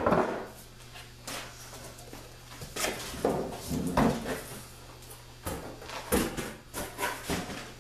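Irregular knocks, thumps and scrapes from handling a large cardboard box and its cart parts on a shop bench, the loudest knock at the very start, then about eight more spaced unevenly through the rest.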